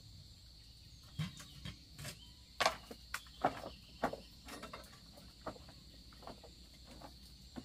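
Insects chirring in one steady high note, under a dozen or so irregular sharp knocks and clicks, the loudest a few seconds in.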